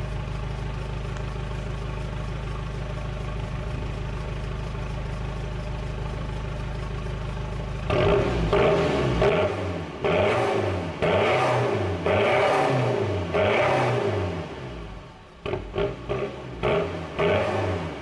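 Citroën Berlingo's 1.6 HDi four-cylinder turbodiesel running through a straight-piped twin-exit exhaust. It idles steadily for about eight seconds, then is revved up and down about six times, roughly once a second, with a few short, quick blips near the end.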